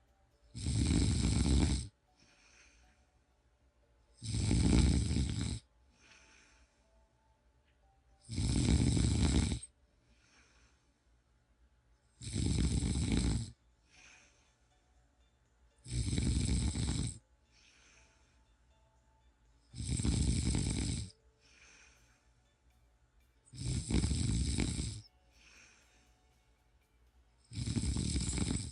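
A person snoring in an even rhythm: a loud snore about every four seconds, each lasting about a second and a half, with a faint breath between snores.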